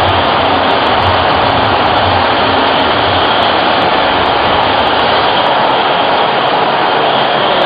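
Steady stadium crowd noise from a football match broadcast, an even roar that cuts off abruptly near the end.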